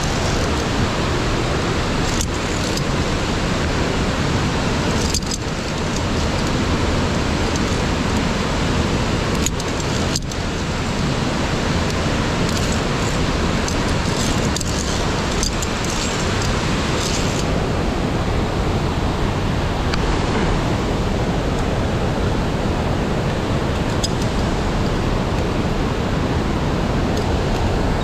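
Steady rushing of a gorge's mountain stream, a loud even noise that dips briefly about five and ten seconds in.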